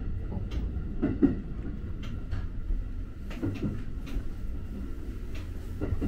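Low rumble inside an electric commuter train rolling slowly beside a station platform, with a few scattered soft clunks and knocks from the carriage and wheels.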